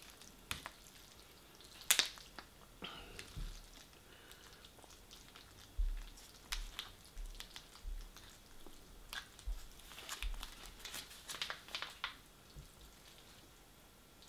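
Close-up eating sounds: chewing takeaway noodles, with wet mouth clicks and smacks and the occasional tap of a metal fork in a foil tray. Scattered at first, the clicks and smacks come thick from about six to twelve seconds in.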